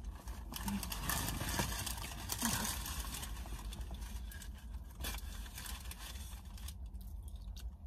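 Rustling, scraping and small clicks of a person shifting in a car seat and handling clothing or wrappers, dying down for the last second.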